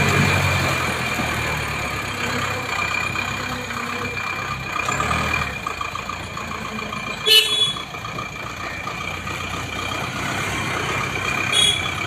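Diesel truck engine idling, loudest at first and fading to a steady hum. A short vehicle horn toot sounds about seven seconds in, and another brief toot near the end.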